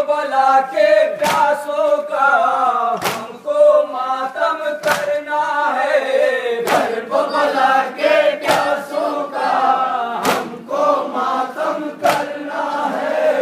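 A group of men chanting in unison, led by one voice, with a sharp collective slap about every 1.8 seconds, seven in all. This is typical of a noha recited with matam, rhythmic chest-beating in mourning.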